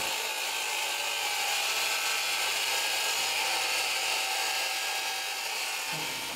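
A steady hiss with faint whistling tones; it stops suddenly about six seconds in.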